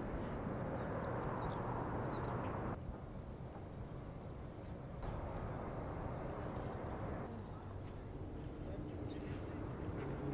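Faint outdoor ambience: a steady hiss with a low hum, and a few short bird chirps between one and two seconds in. The background shifts abruptly every two or three seconds.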